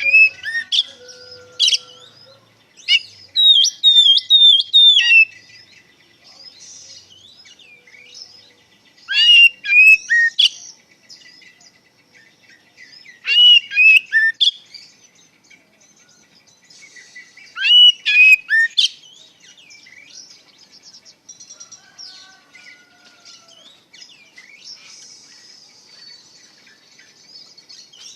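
Oriental magpie-robin singing: loud, clear whistled phrases with sweeping pitch, given in bursts every four to five seconds, one with a quick run of repeated notes. Softer chirps fill the gaps, and only these are left after about 19 seconds.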